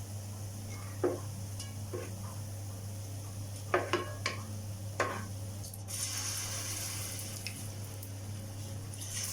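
A utensil clinking and scraping against a frying pan about six times as fried plantain snacks are lifted out of hot oil. From about six seconds in the oil sizzles steadily, over a low steady hum.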